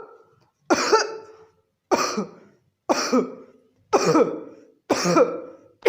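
Barking cough: a series of harsh, dog-bark-like coughs, one about every second, five in a row. Each starts with a sudden hard burst and trails off into a hoarse, pitched tail.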